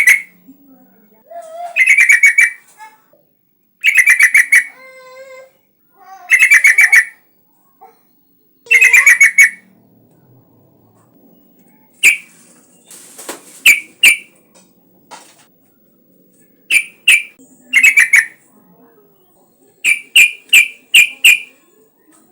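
Yellow-vented bulbul (trucukan) singing loudly: first a series of short bubbling phrases about every two and a half seconds, then shorter separate notes, ending in a quick run of five.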